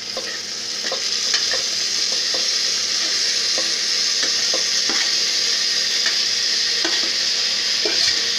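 Chopped tomatoes sizzling as they are tipped into the fried onions in a pressure cooker. The hiss builds over the first second, then holds steady. A steel ladle scrapes and taps against the steel plate every second or so.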